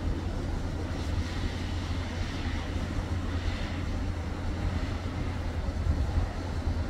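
Steady low outdoor rumble of city traffic and railway background, with no single event standing out.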